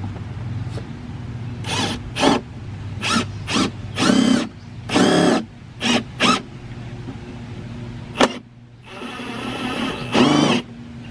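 Milwaukee cordless impact driver run in about ten short trigger pulls, each a brief whir that spins up and dies away, driving screws to fix a mailbox to its post. A steady low hum runs underneath.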